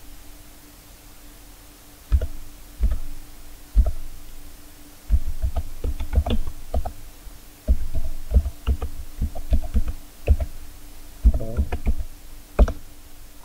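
Computer keyboard being typed on: irregular keystrokes in quick runs, each a sharp click with a dull thump, starting about two seconds in. A faint steady hum runs underneath.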